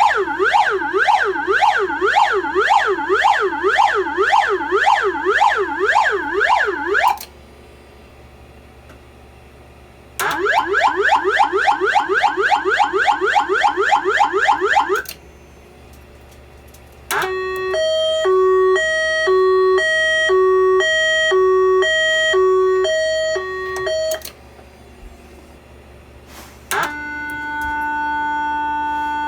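Audiosone / Silent Knight voice evacuation fire alarm speaker sounding a series of its alarm tones, with short pauses between them. First come fast up-and-down siren sweeps for about seven seconds, then quickly repeating rising sweeps for about five seconds, then an alternating high-low two-tone pattern. A steady continuous tone starts near the end.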